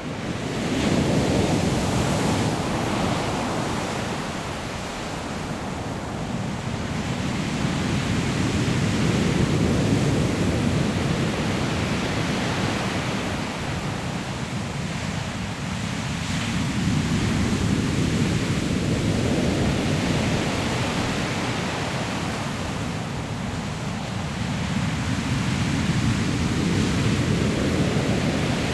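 Ocean surf breaking on a pebble beach, loud and rushing, swelling and easing in slow surges about every eight seconds as waves come in and wash back.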